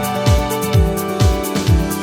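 Background music with a steady electronic kick-drum beat under held synth notes.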